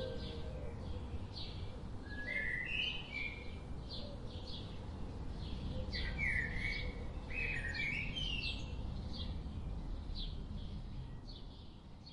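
Birds chirping outdoors: a string of short high chirps repeating every half second or so, with a few longer, lower calls around two and a half seconds in and again between six and eight seconds, over a faint low rumble of ambience. The sound fades away near the end.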